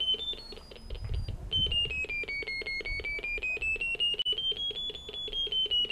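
Terrier locator receiver sounding a rapid, even series of beeps. Their pitch steps down and then climbs back up as the receiver is moved relative to the dog's collar transmitter. A higher tone means it is closer to the transmitter, a lower tone farther away.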